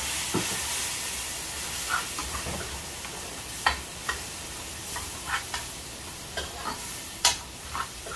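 Curry masala and seasoning sizzling in hot oil in a metal pot, with a little water just added, while a spoon stirs it, scraping and clicking against the pot at irregular intervals. The sizzle eases off while the spoon strokes come more often towards the end.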